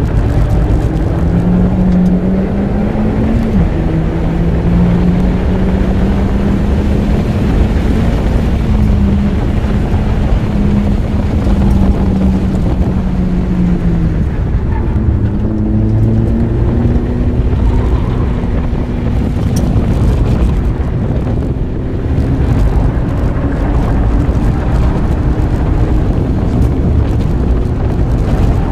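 Lotus Elise Series 3's four-cylinder engine pulling hard on a track lap, heard from the open cockpit with wind rushing over the microphone. The engine note climbs, drops sharply at a gear change about three seconds in, and falls away around the middle before rising again.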